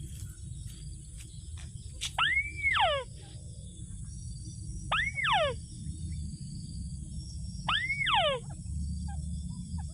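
A rail's call, three times at intervals of about two and a half to three seconds. Each call is an arched note that rises and falls, followed by a few quick downward-sliding notes. Steady insect trilling and a low rumble run underneath.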